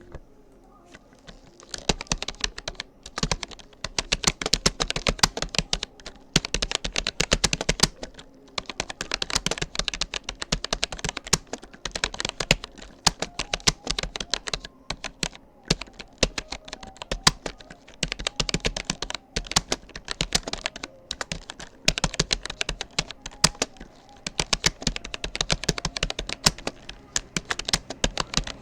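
Typing on a Rapoo computer keyboard: fast runs of key clicks with short pauses between bursts, starting about a second and a half in.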